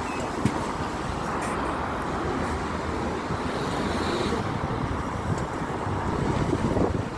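Bus Éireann ADL Enviro400ER Cummins hybrid double-decker running while stopped, a steady rumble with traffic noise around it.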